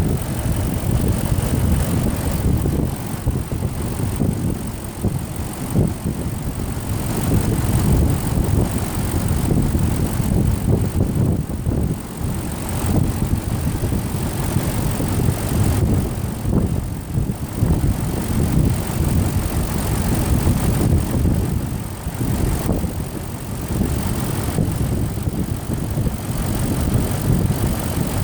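Range Rover engine idling steadily, a low rumble, during ignition testing for a suspected misfire.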